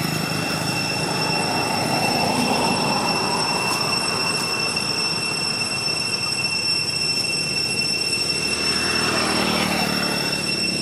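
Motorbike traffic passing on a road: one bike going by in the first few seconds and another vehicle swelling and fading about nine seconds in, over a steady high-pitched whine.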